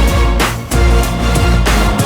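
Background music with heavy bass and a steady beat, a drum-like hit about every second and a quarter.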